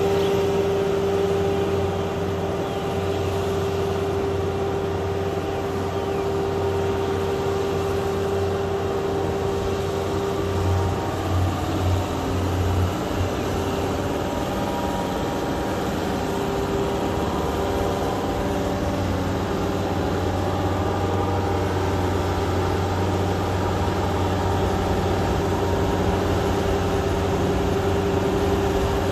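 Farm tractor engine running steadily under load while it drives a rotary tiller through a flooded rice paddy, with a steady high hum over the low engine rumble. The rumble surges briefly a few times about halfway through.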